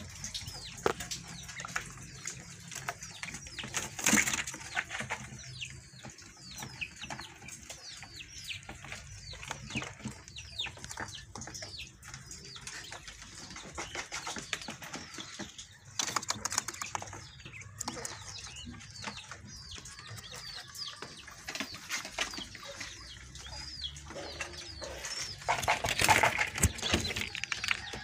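Caged small birds chirping over and over in short, falling chirps, with several loud bursts of wing flapping and knocking on the wooden cage as quail are put into it.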